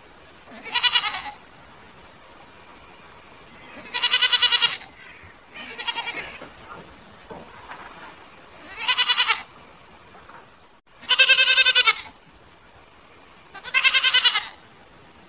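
Goats bleating: six loud, wavering bleats a couple of seconds apart, most about half a second long and one of about a second about two-thirds of the way in.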